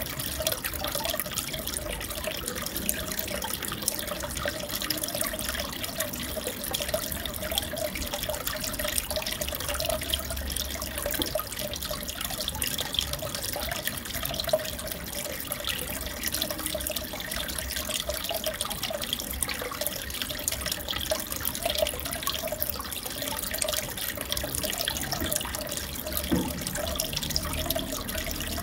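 Aquarium water bubbling and trickling steadily, a dense patter of tiny bubble pops over a constant water hiss.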